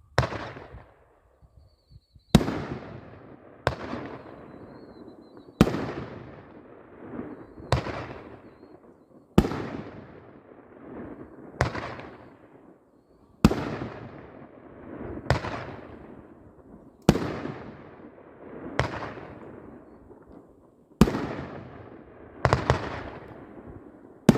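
A 9-shot 2-inch consumer fireworks cake firing, with about a dozen sharp bangs spaced roughly two seconds apart, each trailing off in crackle and echo.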